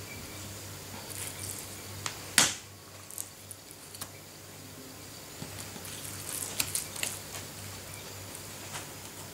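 Knife and fish being handled on a plastic cutting board: one sharp knock about two and a half seconds in, then a few lighter clicks and taps around seven seconds, over a low steady hum.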